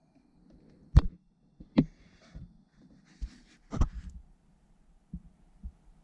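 Irregular knocks, clicks and thumps of a hand handling the camera and brushing the car's center console trim. The sharpest knock comes about a second in, with others near two and four seconds and a few softer thumps after.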